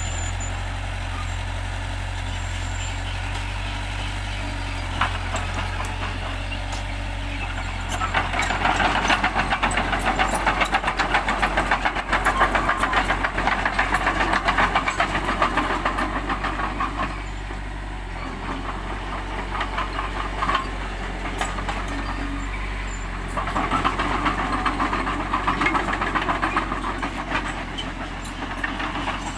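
Bulldozer's diesel engine running steadily, growing louder with a dense rapid clatter for about nine seconds in the middle and again for several seconds near the end, as the machine works.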